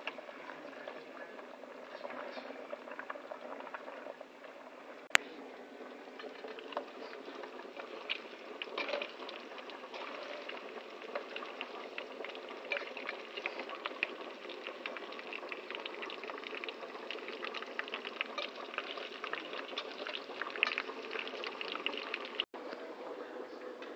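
Pasta water boiling in a pot, then chicken skin deep-frying in oil: a steady sizzle with many crackles and pops that grow denser from about eight seconds in. A single sharp click about five seconds in.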